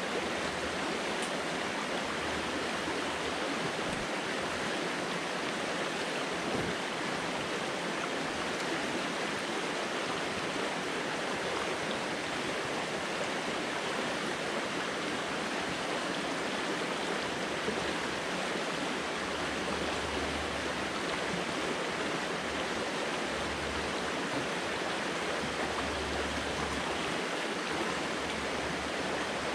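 Shallow, fast-flowing mountain stream rushing over rocks, a steady, even wash of water noise.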